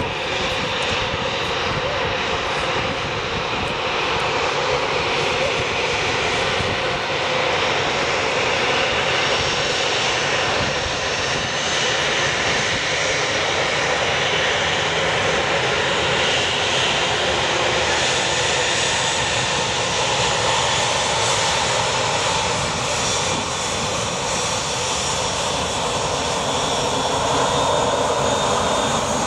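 Swiss Airbus A320's twin jet engines running steadily at taxi power as the airliner taxis past and lines up on the runway, getting slightly louder near the end.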